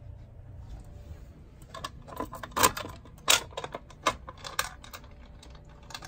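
Sharp plastic-and-metal clicks and knocks as hands work at the fire alarm pull stations on the shelf, with a light jangle of keys. The clicks bunch up in the middle, where two are much louder.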